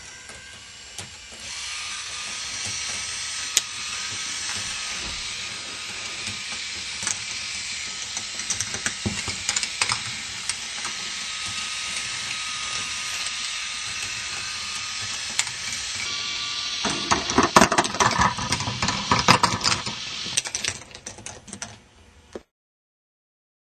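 K'nex ball machine running: its motor-driven lift makes a steady whirring and ticking of plastic parts. Near the end come a few seconds of louder, dense clicking and clattering, like balls rattling along the plastic track, before the sound cuts off abruptly.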